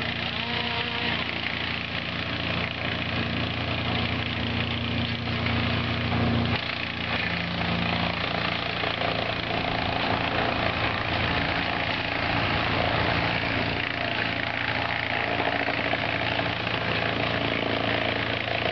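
Wood chipper's engine running steadily, with a shift in its note about six seconds in.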